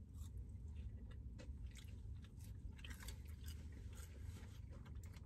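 Close chewing of thin shoestring French fries dipped in sauce: soft irregular crunches and small mouth clicks over a low steady hum.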